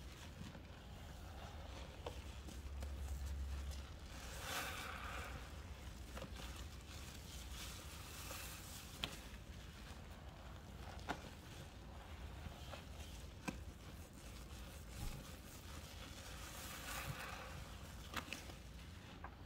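Faint squishing and crackling of a thick powdery soap paste (baking soda, Zote soap flakes and baby powder) being squeezed and worked by hand, with soft swells of crunching and a few sharp small clicks.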